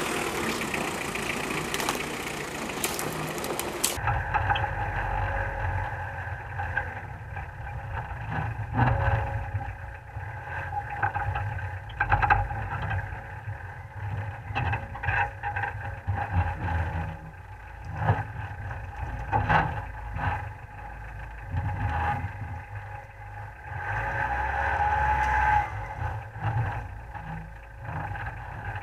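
Off-road 4x4 engine running at low revs while the vehicle crawls over rough forest ground, with repeated knocks and rattles from the body and suspension. From a few seconds in it is heard from a camera inside the vehicle. The engine note swells briefly near the end.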